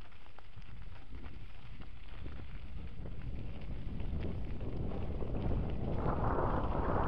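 Wind buffeting a moving camera's microphone, over the rumble and rattle of tyres rolling on a loose gravel track. The wind noise swells and grows much louder near the end.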